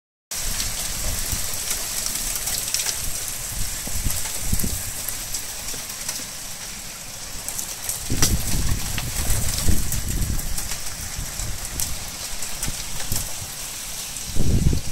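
Hail falling, a dense steady patter of small hard impacts on the ground, wall and plants. Low rumbling on the phone's microphone comes in from about eight seconds in.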